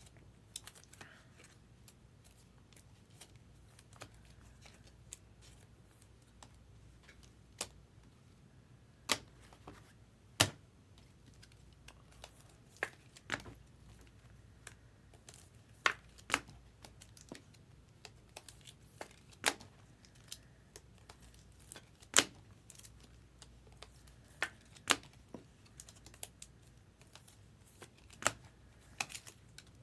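Trading cards being handled and set down on a table: scattered, irregular sharp clicks and taps, a few much louder than the rest, over a quiet background.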